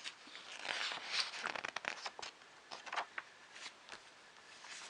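Magazine pages being handled and turned: a run of papery rustles and crinkles over about three seconds, then quieter.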